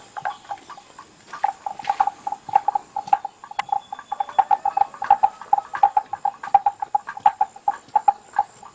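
Rapid, irregular hollow knocking clicks, several a second, from water buffalo close by, with a faint steady high whine behind them.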